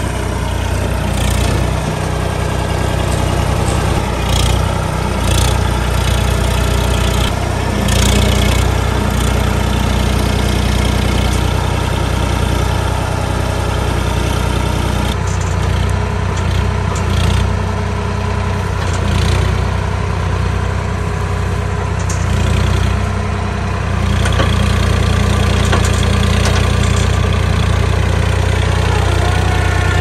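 Swaraj 963 FE tractor's three-cylinder diesel engine running steadily while it powers the hydraulics of its mounted backhoe loader. It gets a little louder about two-thirds of the way through.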